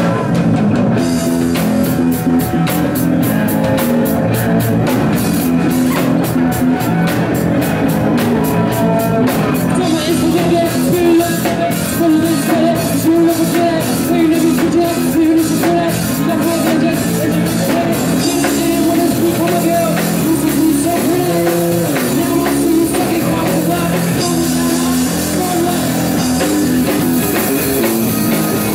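Live punk rock band playing: electric guitars and a drum kit with a singer. Quick regular drum strokes run through the first two-thirds, then stop.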